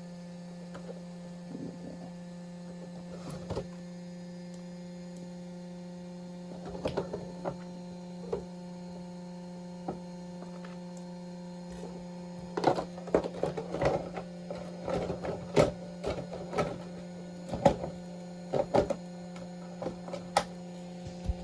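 A steady electrical hum throughout, with a few isolated clicks in the first half. About halfway in, a run of irregular sharp clicks and knocks begins, like hard plastic parts being handled.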